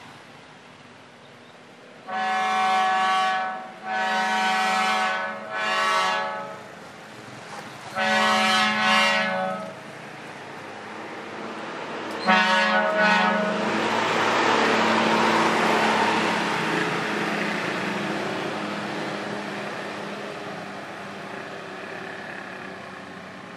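Tour bus horn sounding five loud blasts as the bus approaches. The bus then passes close by, its engine and tyres making a rushing noise that swells and slowly fades as it drives away.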